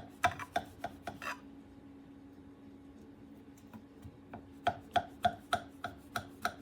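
Sharp knife making diagonal cuts through layered phyllo baklava in a pan, a run of quick crisp taps of the blade about three a second, pausing for a few seconds in the middle before starting again.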